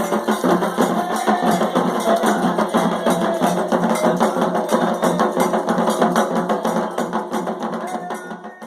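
Music with fast, steady percussion: drums and a clicking wood-block-like beat, with a few held pitched notes over it, fading out near the end.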